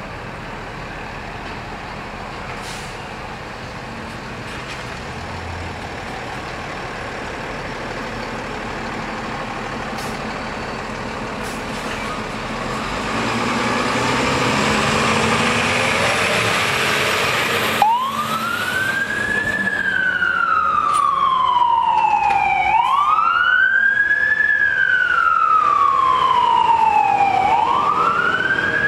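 A KME fire engine heading out on a call. Its engine and a rising rush of noise grow louder over the first half. After a break, a siren wails, sweeping up quickly and falling more slowly, about once every four seconds.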